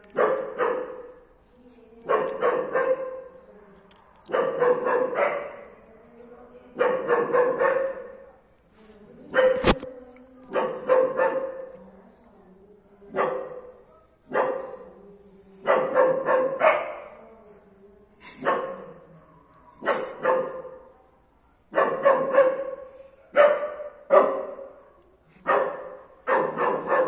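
German Shepherd dog barking in repeated bursts of two to four quick barks, about one burst every two seconds.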